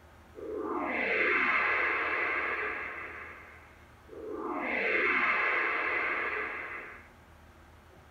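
The GoodTimes Home Video Platinum Series logo's synthesized whoosh sound effect, played from a VHS tape through a TV speaker. Two identical swells of about three seconds each, with falling sweeps in pitch: the first begins just after the start, the second about four seconds in.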